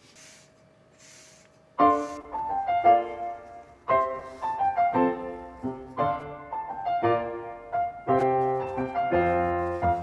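Two faint short hisses, then background piano music starting about two seconds in and running on with a melody over chords.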